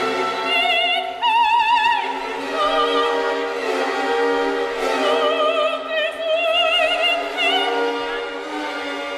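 Background music: an operatic voice singing long held notes with a wide vibrato over an orchestra.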